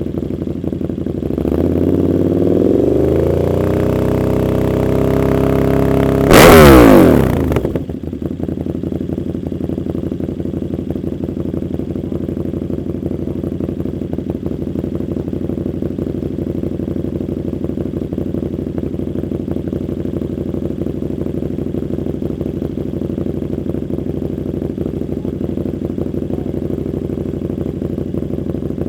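KTM Super Duke 1290 R's V-twin engine through an Austin Racing V3 150 mm exhaust: the revs climb and are held raised for a few seconds, then a sharp, loudest rev shoots up and drops back. After that the engine settles to a steady idle.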